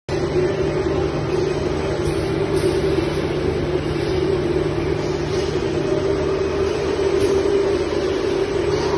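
Blue-roll paper towel production machinery running, with a log saw cutting logs of blue paper towel: a steady mechanical drone with a constant low hum.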